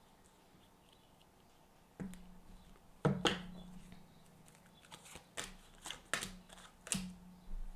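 Tarot cards being handled and laid down on a table: a run of sharp card clicks and slaps, starting about two seconds in, loudest about a second later, then several more lighter clicks.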